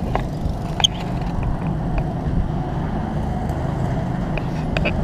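Go-kart engines running steadily as karts lap the track, with one sharp click about a second in.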